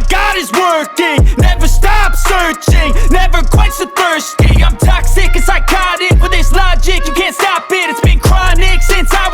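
Hip hop track with a very heavy, pulsing bass, played over the car's sound system at full volume. The bass overdrives the small camera microphone.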